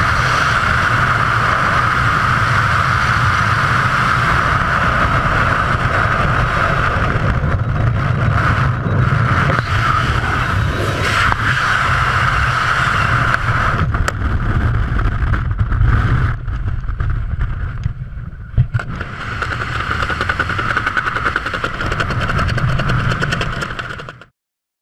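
Wind rushing and buffeting over a skydiver's helmet-camera microphone in freefall, a loud steady rush with a deep rumble. It thins somewhat about two-thirds through, then cuts off abruptly just before the end.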